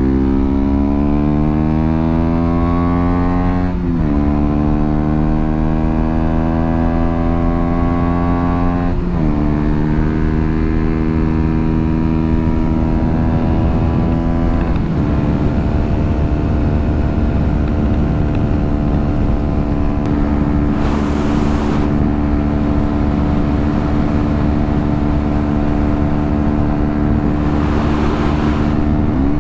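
KTM Duke 125's single-cylinder four-stroke engine accelerating through the gears. Its pitch climbs and drops suddenly three times as it shifts up, then holds steady at cruising speed. Two short rushes of hiss come in the second half.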